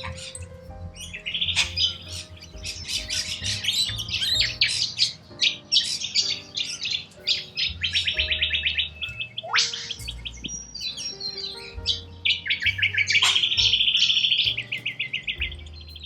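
Birds chattering and trilling in fast runs of rapid repeated high notes, with a quick upward sweep about ten seconds in, over soft background music.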